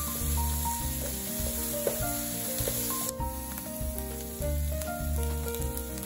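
Sliced onions, peppers and bacon sizzling in oil in a frying pan as they are stirred; the sizzle cuts off about halfway through. Background music with a melody and bass plays throughout.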